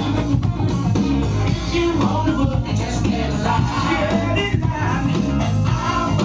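Loud funk music with a singing voice over a heavy, steady bass line.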